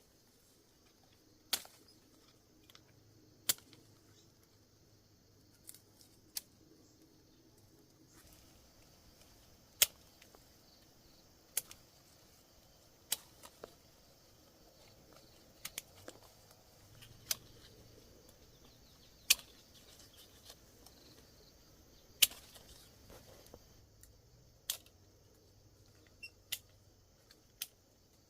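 A series of sharp single snaps or clicks, irregularly spaced about one every second or two, over a quiet background.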